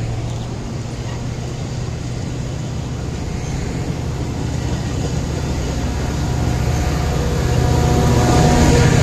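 Approaching train's diesel locomotive: a steady low engine hum that grows louder through the last few seconds.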